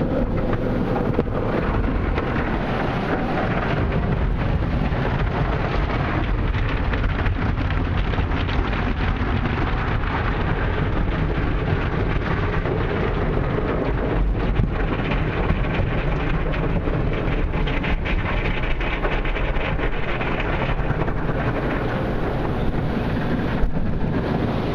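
Belanger tunnel car wash heard from inside the car: water and soapy foam spraying and sheeting over the windshield, windows and body with the wash machinery running, a steady dense rush like heavy rain.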